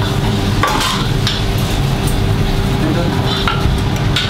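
Restaurant kitchen during service: a steady hum and hiss, with occasional clinks of plates and utensils and faint snatches of voices.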